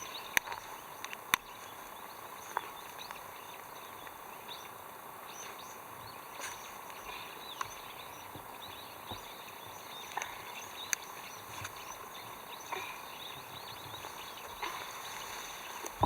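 Quiet rural outdoor ambience with faint, scattered bird chirps and occasional sharp clicks.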